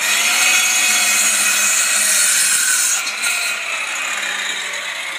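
Handheld circular saw running and cutting across a timber noggin, the motor pitch dipping under load. The cutting is loudest for about three seconds, then eases while the saw keeps running.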